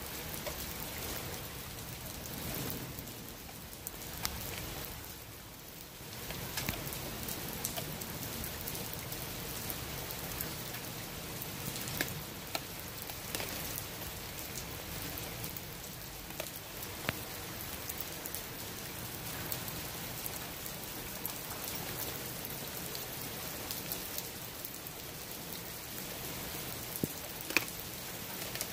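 Steady rain falling, with scattered sharp crunches as a Blue Bay Shepherd chews a whole raw fish; two crunches come close together near the end.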